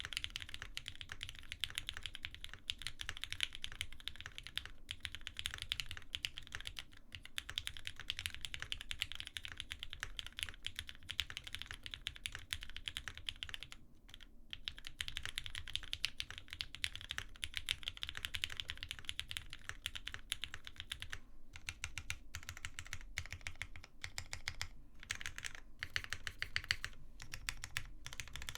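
Fast, continuous typing on a custom Wendy TKL mechanical keyboard with a polycarbonate plate: a dense run of keystrokes with a short pause about halfway through, the strokes coming in broken spurts with gaps near the end.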